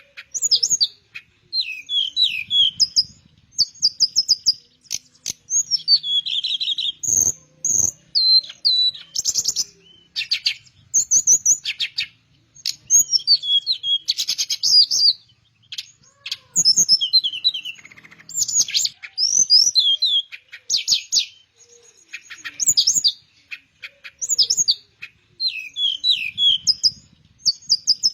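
Teledekan Melayu, a blue flycatcher, singing in its lively full-song state known as gacor: a continuous run of high, varied phrases made of quick chattering note runs and sweeping whistled glides, with short gaps between phrases.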